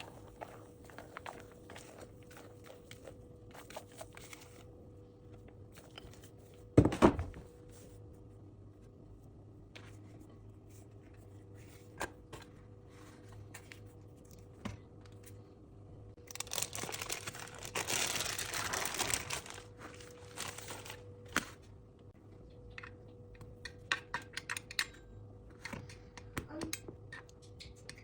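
Kitchen handling sounds during baking preparation: light clicks and taps, one loud knock about seven seconds in, and a few seconds of rustling and crinkling past the middle, like paper or plastic being handled. A steady low hum runs underneath.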